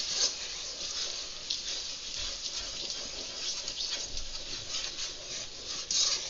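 Wooden spoon stirring a saucepan of melted butter, milk and freshly added sugar: a steady swishing and scraping against the pot as the mixture heats toward a boil.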